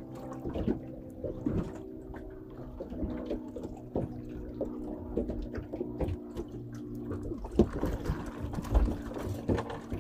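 Water lapping and splashing against the hull of a small boat, with scattered small knocks and a steady hum of several held tones underneath.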